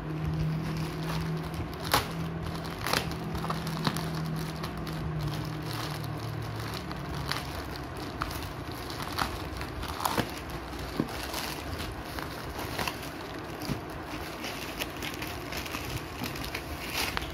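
Plastic courier mailer bag handled and torn open by hand: continuous crinkling and crackling of the plastic with sharp snaps now and then. A low steady hum sounds underneath for the first several seconds.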